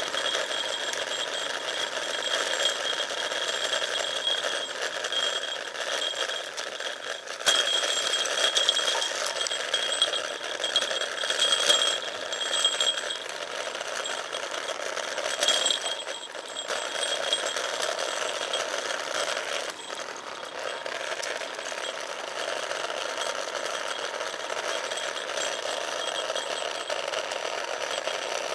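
Bicycle brakes squealing with a steady high whine while descending, over a constant rush of wind and tyre noise; the whine drops away about halfway through, returning briefly once, and there are a few sharp knocks.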